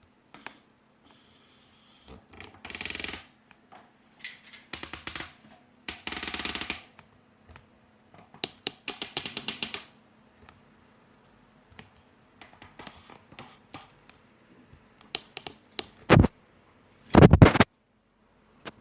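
Plastic wireless keyboard being handled: irregular clusters of clicks, rattles and scraping, then two loud sharp knocks near the end.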